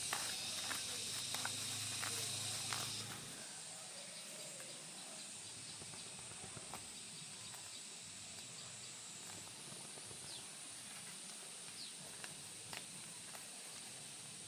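Outdoor ambience with a steady high-pitched insect drone and a few scattered clicks. A louder layer of insect noise, clicks and low hum stops about three seconds in.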